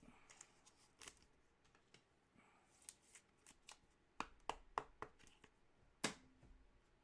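Trading cards being handled: faint sliding and shuffling with scattered light clicks and taps, a quick cluster of four or so around four to five seconds in.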